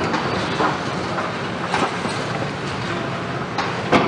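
Hydraulic demolition excavators running steadily, with irregular clanks and knocks of steel and concrete rubble being worked; the sharpest knock comes near the end.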